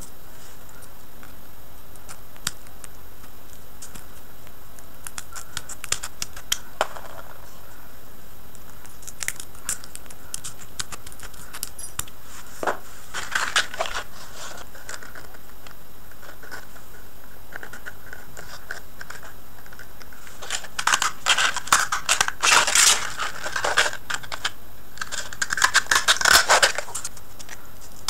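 Paper being handled: crisp rustling and crinkling with scattered clicks, a short burst a little before the middle and a longer, busier stretch near the end, over a steady hiss.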